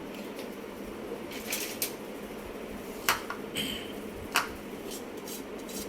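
A few sharp clinks and knocks of kitchen utensils against a bowl while onion juice is squeezed into it, the loudest about three and four and a half seconds in, over a steady low hum.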